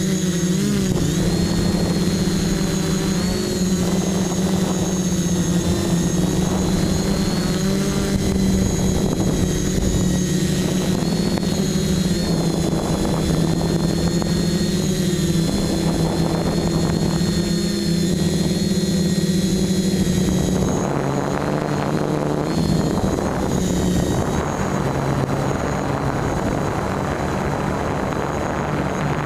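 FPV quadcopter's electric motors and propellers buzzing in flight, heard from the onboard camera, the pitch wavering with throttle. About two-thirds of the way through, the tone drops a little lower and the sound grows rougher.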